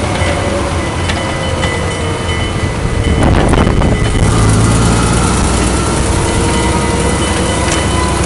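The petrol engine of a 1937 Leyland FTA3 fire engine running under way after an overhaul, a steady engine note with road noise. About three seconds in there is a brief rush of noise, and after it the engine note is fuller.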